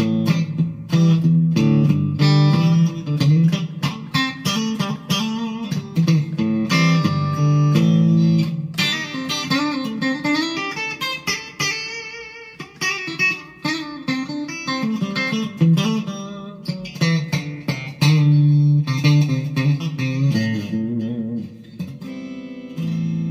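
Electric Strat-style guitar, a Monoprice Indio Cali Classic, played through a small practice amp on its bridge pickup alone: picked chords and single-note lines that end on a held, ringing chord.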